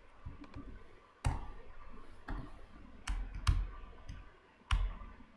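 Computer keyboard keys and mouse buttons clicking: about five separate sharp clicks, spaced roughly a second apart.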